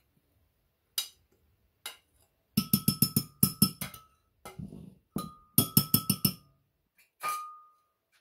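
A spoon clinking against glass and a bowl, knocking chopped herbs into a blender jar: a few single knocks, then two quick runs of rapid taps, about six a second, some ringing briefly with a clear glassy tone.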